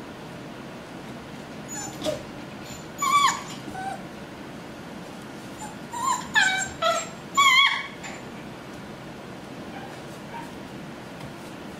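Puppies whimpering and yipping: about six short, high whines in two bursts, a few seconds apart, over a steady background hiss.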